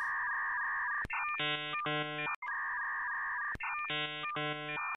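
A looping electronic beeping tune of the ringtone or hold-music kind. Each cycle is a held tone of about a second, a small click, then quick runs of short beeps, and it repeats about every two and a half seconds, twice through.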